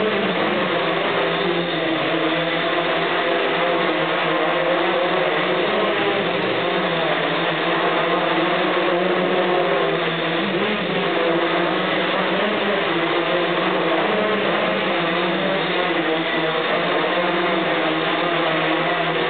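Hexacopter's six electric motors and propellers whirring in a steady hover, their several pitches wavering up and down slightly as the craft shifts position.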